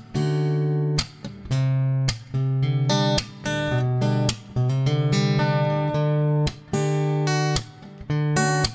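Background music: a plucked acoustic guitar playing a melody with strummed chords, each note struck sharply and left to ring, with a few quick repeated-note runs.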